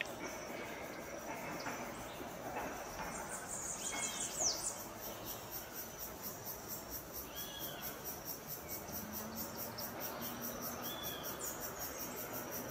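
Insects, crickets or cicadas, trilling high and steady with a fast, even pulse. A few short bird chirps come over it: a falling one about four seconds in, and brief arched calls every couple of seconds later on.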